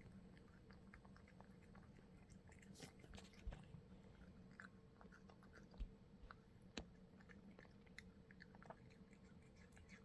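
A cat eating greedily: quick, irregular chewing and smacking clicks, faint, over a steady low hum.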